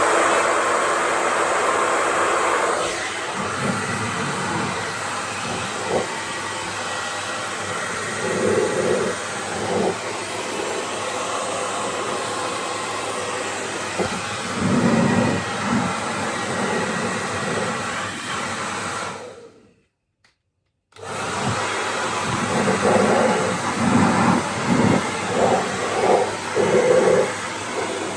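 Hair dryer blowing steadily, used to melt the ice holding a freezer's interior panel in place. It is switched off about two-thirds of the way through and back on a second or so later, with the airflow surging unevenly at times.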